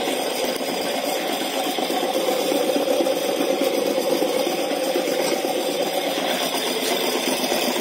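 Homemade corn sheller running steadily, its drive wheel turned by a recycled ceiling-fan motor: a continuous, even mechanical whirr.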